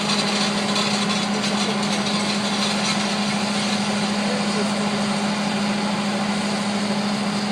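Farm machinery engine running steadily, a constant drone with a strong, even hum.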